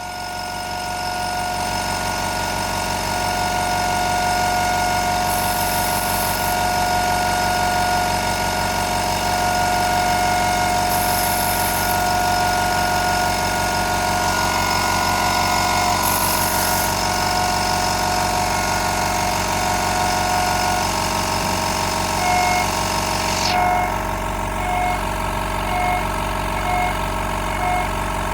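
CNC router spindle at 20,000 rpm driving an 8 mm two-flute carbide endmill through 5083 aluminium, giving a loud, steady high-pitched cutting whine. About four seconds before the end, the hiss above the whine drops away and the tone comes in short regular pulses as the cut changes.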